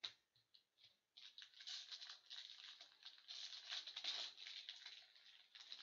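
A shiny foil trading-card pack being torn open by hand, the wrapper crinkling and rustling; a few light clicks come first, then the tearing and crinkling runs dense from about a second in.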